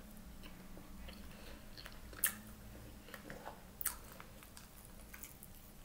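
Close mouth sounds of someone chewing a bite of peeled hard-boiled egg, faint and soft, with two sharper clicks about two and four seconds in.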